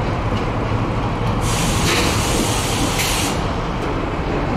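A train rumbles steadily past. About a second and a half in there is a hiss of escaping air that lasts about two seconds, starting and stopping sharply.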